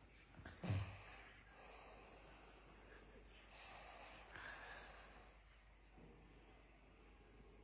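A sleeping person snoring: one short, sharp snort about a second in, then softer, breathy snoring breaths.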